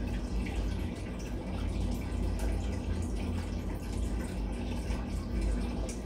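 Steady room background: a low rumble and hiss with a faint trickling, water-like sound.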